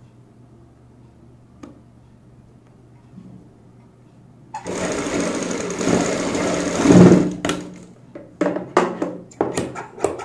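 A sewing machine runs a seam for about three seconds, starting about halfway in. It is followed by a quick series of sharp snips from tailor's scissors trimming the thread.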